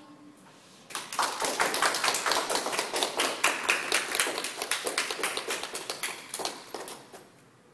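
A small group of people applauding, starting about a second in and tapering off near the end.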